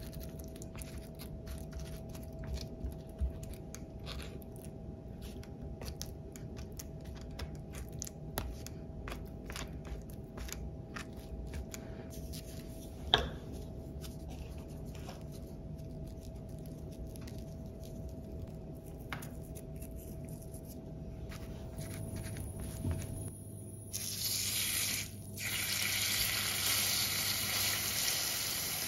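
Home kitchen cooking sounds: light clicks and taps of handling over a low steady hum, with one sharp knock about halfway through. Near the end a louder, steady hiss takes over.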